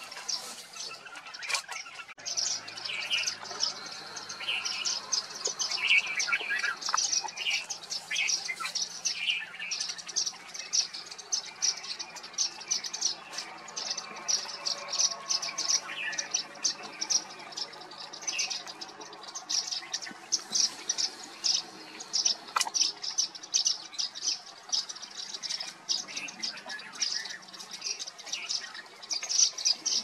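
A flock of Indian silverbills (white-throated munias) keeps up quick, high chirping calls, many short notes overlapping each second, with some lower notes mixed in during the first several seconds.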